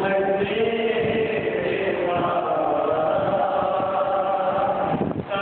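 A man's voice chanting a melodic Urdu mourning recitation into a microphone, holding long notes, with a short break near the end.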